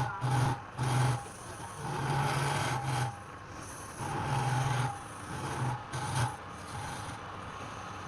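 A cutting or sanding tool pressed against wood turning on a lathe in repeated short passes, each a scraping rasp over the machine's hum. The passes stop after about six seconds, leaving a steady running noise.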